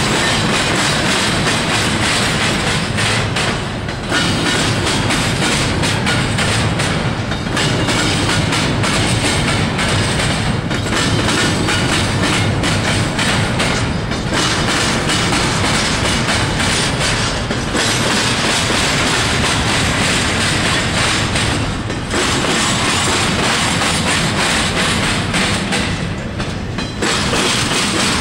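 Cars of an intermodal freight train rolling past, their wheels clattering over the rail joints. The level dips briefly every three to four seconds.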